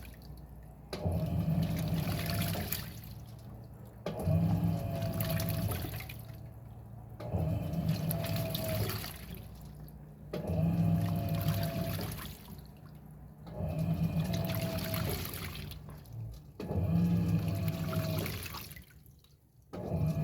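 Electrolux 6 kg washing machine agitating a load of towels in water: the motor hums in strokes that start abruptly and fade, about one every three seconds, over the swish and slosh of water.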